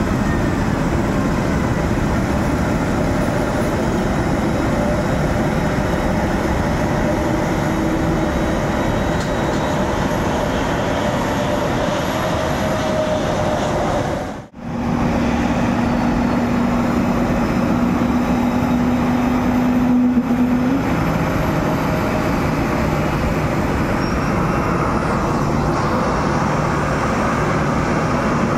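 Steady, loud engine noise from an airport apron with a low rumble and a faint high whine, the kind made by jet airliners taxiing nearby. The sound cuts out for a moment about halfway through and picks up again, and a low hum runs for several seconds after the break.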